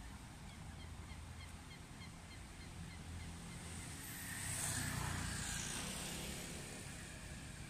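Outdoor city ambience: a low steady rumble of distant traffic, with a small bird chirping about four times a second for the first three seconds or so. A louder whoosh swells and fades in the middle.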